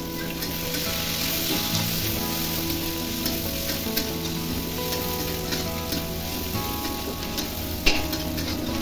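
Chopped red onions sizzling as they fry in hot oil in a kadhai, with a steel spatula stirring and scraping them around the pan. A sharp knock of the spatula against the pan near the end.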